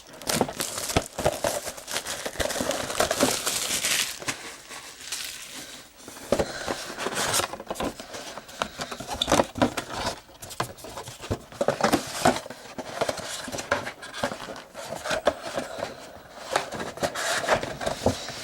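Plastic wrapping crinkling and tearing as a sealed box of trading cards is unwrapped and opened, a continuous irregular crackle with sharp clicks.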